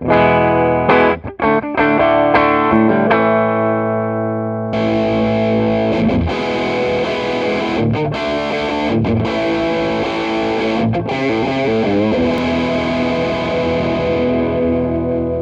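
Electric guitar on its bridge pickup played through a Donner Morpher mini distortion pedal into a clean amp: heavily clipped, fully saturated distorted chords. A few separate chords are struck at first, then about five seconds in it becomes a denser, brighter riff with short stops, ending on a chord left to ring out.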